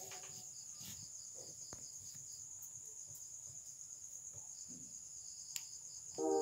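Crickets chirping faintly and steadily, a high, even pulsing, with one soft click about five and a half seconds in.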